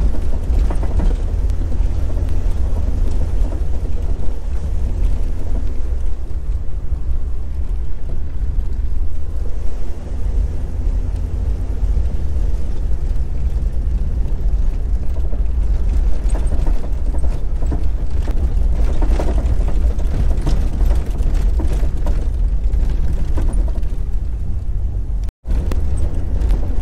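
Jeep Cherokee XJ driving on a dirt road: a steady low rumble of engine and road noise, with a split-second break near the end.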